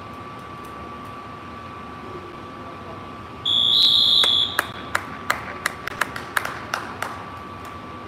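Gym scoreboard buzzer sounding one loud, steady high tone for about a second, signalling time expiring on a wrestling period. It is followed by a few seconds of scattered hand claps, about three a second.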